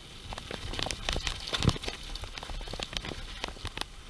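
Mountain bike rolling down a rough, leaf-covered dirt trail: tyres crunching over leaves and stones, with frequent rattling clicks and knocks from the bike. The loudest knock comes just under halfway through.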